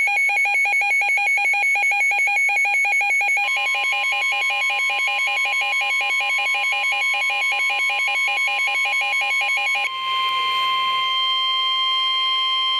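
Weather radio alert: a loud electronic alarm pulsing rapidly between two pitches, joined about three seconds in by the steady single-pitch warning alarm tone of a National Weather Service broadcast. The pulsing stops near ten seconds in and the steady tone runs on, announcing a flash flood warning.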